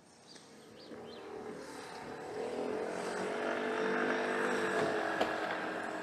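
A motor engine hums, swelling steadily over the first few seconds and then slowly fading, as a vehicle goes past.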